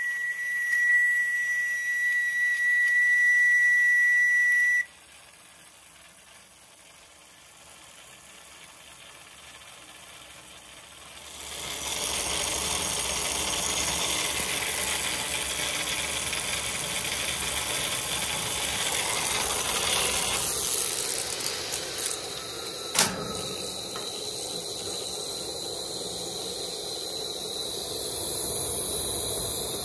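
Steam whistle on an Aster live-steam model locomotive sounding one steady high note, which cuts off abruptly about five seconds in. After a quieter spell, steam hisses steadily from the model for the rest of the time, with one sharp click a little past twenty seconds.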